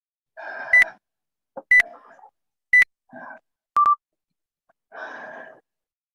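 Interval timer counting down: three short high beeps one second apart, then a longer, lower beep that marks the start of the next interval. Heavy breathing between the beeps.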